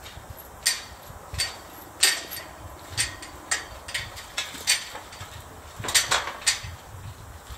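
Irregular sharp knocks and strikes, about a dozen, spaced a fraction of a second to a second apart, with a quick run of three near the end: hammering and knocking on gate hardware while swapping an old wooden gate for a steel one.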